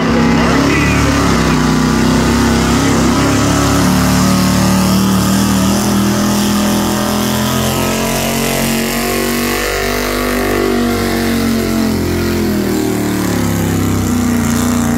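Pro street gas pulling truck's gasoline engine running loud at high revs under load, its pitch wavering up and down throughout.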